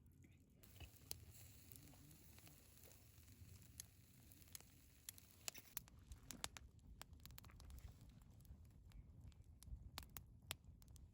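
Faint, irregular clicks and ticks over a low rumble, growing more frequent about halfway through.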